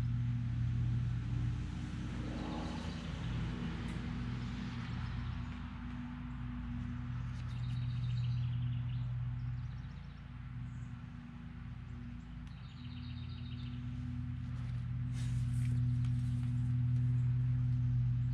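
A steady low hum, with a bird's short trills repeating three times, several seconds apart.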